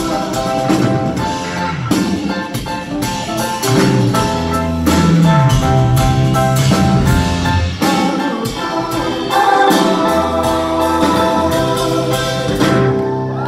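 A live indie rock band playing in a concert hall: electric guitar, keyboards and a drum kit, with sustained chords over steady drum hits.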